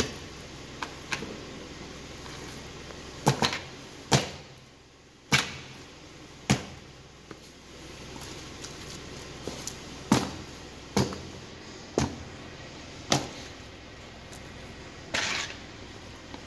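Flat-soled leather boots stepping down on and crushing pieces of raw chicken on a concrete floor: about ten sharp thuds and squishes, spaced irregularly a second or so apart, the last one longer.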